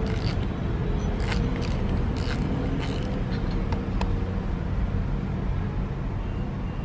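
A steady low rumble of background noise, with a few light clicks and knocks in the first three seconds and one more about four seconds in, as the spool of a Penn Battle III spinning reel is pulled off its main shaft.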